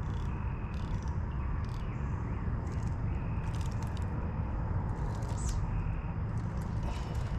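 Fishing reel being cranked to bring in a hooked fish: light clicks and scrapes now and then over a steady low rumble.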